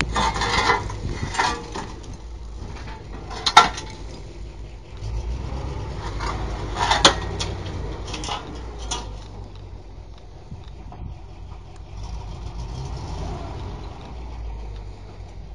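A heavy machine's engine runs steadily under load while the building is torn down. Loud cracks and crashes of breaking structure come several times, the sharpest about three and a half seconds in and about seven seconds in.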